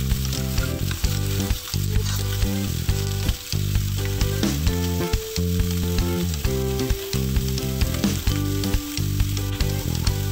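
Cubed pork belly sizzling and crackling in a hot wok, with a metal spoon scraping as the meat is stirred, under low sustained tones that change pitch every second or so.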